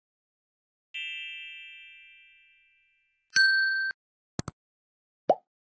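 Channel-intro sound effects for a subscribe-button animation: a bright chime about a second in that rings out and fades over about two seconds, then a short bright beep, two quick clicks and a short pop near the end.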